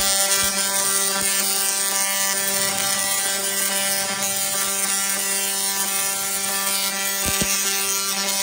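High-voltage Tesla coil discharging: a loud, steady electric buzz at one pitch with a hissing crackle of sparks over it.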